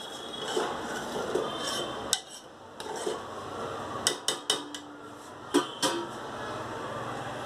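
Stainless steel ladle stirring dal in a cooking pot, scraping against the pot, then several sharp metal clinks as it taps the pot and is set down on a steel plate.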